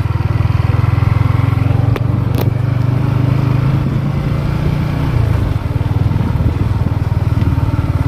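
Motorcycle engine running steadily under way, a continuous low rumble with a brief click about two and a half seconds in.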